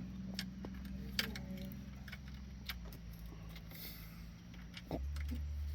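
Metal tools clinking and rattling in scattered sharp clicks while someone works on the ATV's skid plate. A steady low hum runs underneath and grows louder about five seconds in.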